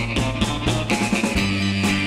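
Rock music with a steady drum beat, played over an end screen.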